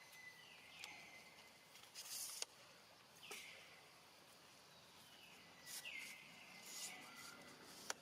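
Faint, short whistled animal calls, each sliding down in pitch and ending on a brief held note, repeated several times at uneven intervals, with a few soft rustles and two sharp clicks.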